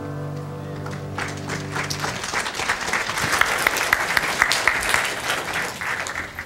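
The last piano chord rings and dies away as a congregation breaks into applause, a dense clapping that builds through the middle and tapers off near the end.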